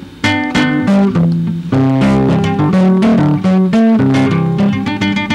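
Acoustic guitar played solo: a quick run of plucked melody notes over lower bass notes, picking up again a moment in after a brief pause.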